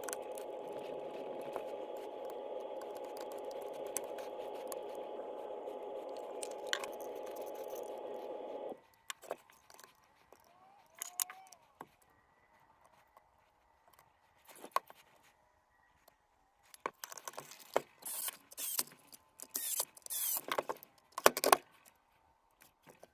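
A steady whirring hiss cuts off abruptly about nine seconds in. It is followed by scattered clicks, scrapes and rattles of hard parts being handled, which grow louder and busier near the end.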